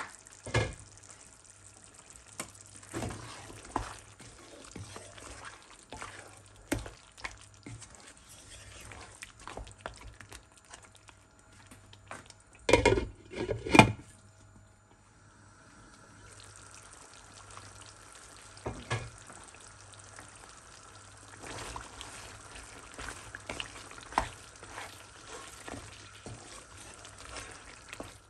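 Mutton frying in ghee in a pan, sizzling softly while a spoon stirs and scrapes, with repeated knocks of the spoon against the pan; a louder run of clatters comes about halfway through.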